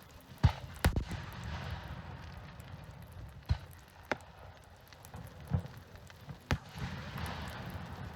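Aerial fireworks bursting: about six sharp bangs at uneven spacing, with crackling trailing after some of them.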